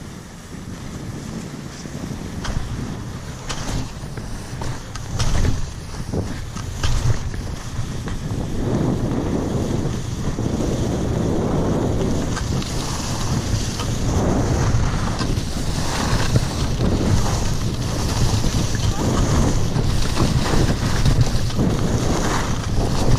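Wind buffeting an action camera's microphone while skiing, with skis hissing and scraping over groomed snow; the rushing grows louder after about eight seconds as speed picks up and swells and fades with each turn. A few sharp knocks come in the first several seconds.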